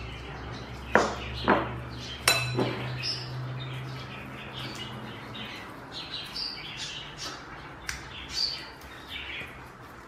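Masala paste being spread and rubbed onto fish steaks on a ceramic plate: three sharp clicks of a utensil against the plate about a second in, then soft wet rubbing by a gloved hand, with short high chirps throughout.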